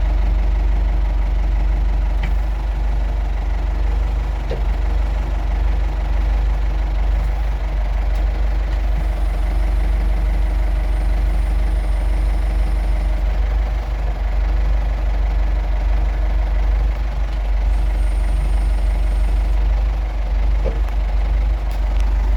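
Ford 5610 tractor's four-cylinder diesel engine running steadily, heard from inside the cab.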